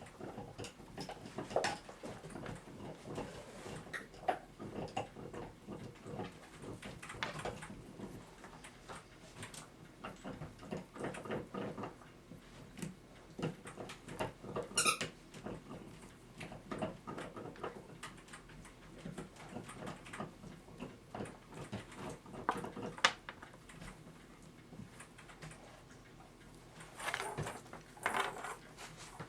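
Scattered light clicks, small squeaks and rubbing as a clock's steel mainspring is greased by hand, with two louder rubs near the end.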